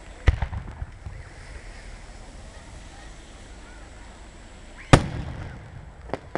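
Fireworks going off: two loud bangs about four and a half seconds apart, each followed by a short rumbling echo, then a rapid run of crackling pops near the end.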